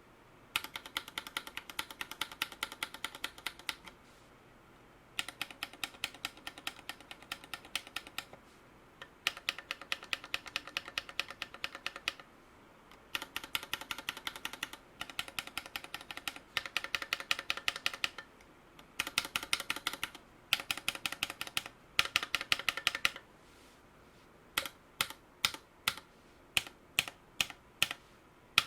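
Typing on a mechanical keyboard, an OLKB Planck with lubed Gateron Merlot switches and SA keycaps: quick runs of key clacks lasting a few seconds with short pauses between them, then slower single key presses near the end.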